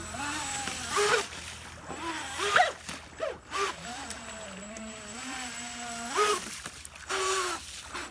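Jetboat engine running and revving up and down as the boat passes, its pitch climbing sharply on several bursts of throttle, each with a rush of noise.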